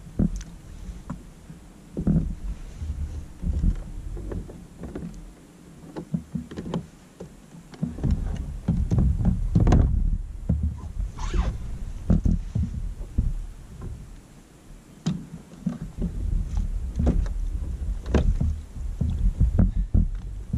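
Sounds of a fishing kayak on the water: irregular knocks and bumps against the boat, over patches of low rumble.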